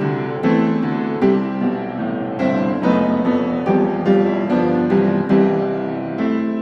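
Background piano music: a slow melody of struck notes and chords, each note fading after it is played.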